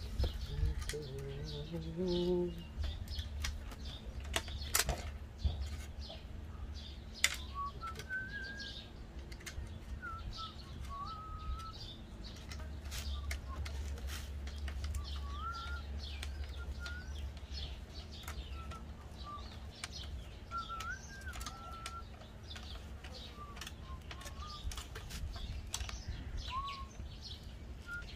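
Scattered metal clicks and clinks from the sheet-metal frame and parts of an old gas stove being handled and worked with pliers. Small birds chirp short whistled calls in the background from about a quarter of the way in.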